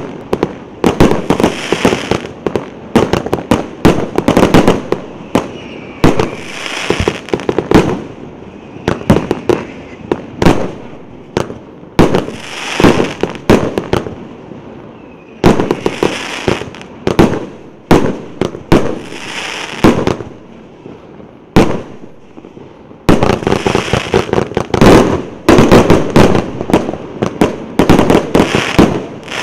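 Multi-shot consumer firework cake of 142 shots of 1.2-inch calibre firing rapid volleys of sharp launch bangs and aerial breaks. The shots come in dense clusters of a second or two, separated by brief lulls.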